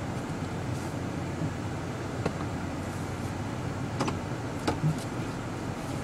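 2013 Range Rover heard from inside the cabin: a steady low hum of engine and road noise, with a few light clicks about two, four and five seconds in.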